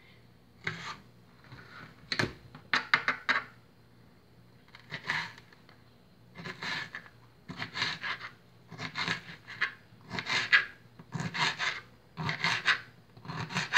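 Kitchen knife cutting a red bell pepper on a plastic cutting board: short rasping cuts, a few scattered ones at first, then a steady run of about two a second through the second half.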